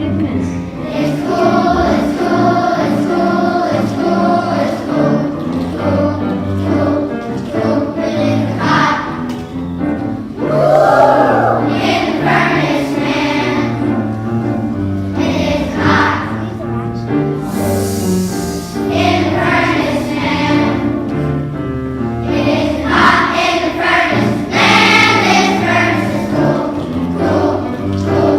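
Children's choir singing a song over an instrumental accompaniment.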